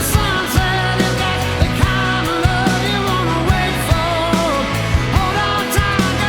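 Background rock music with a steady drum beat, electric guitar and a singing voice.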